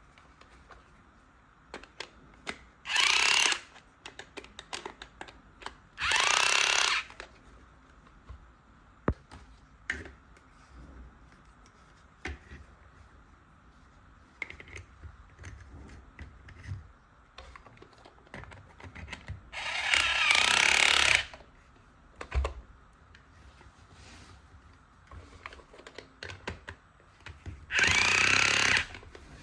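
A small battery-powered electric drill motor whirring in four short bursts, the longest near the middle, each rising and falling in pitch as it spins up and stops. Light plastic clicks and handling sounds fill the gaps.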